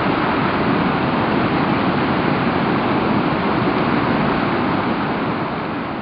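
Ristafallet waterfall and its rapids: loud, steady rushing white water, starting to fade out in the last second.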